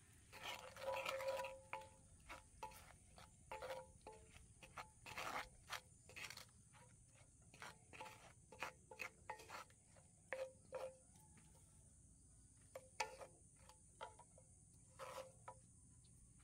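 Wooden spatula stirring in a cast iron skillet: a run of irregular scrapes and knocks against the pan, over a steady high hiss.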